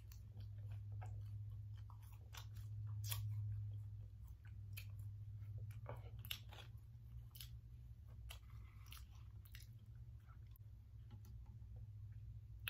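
A person chewing and biting french fries and chicken nuggets close to the microphone, with many small scattered crunches and mouth clicks over a steady low hum.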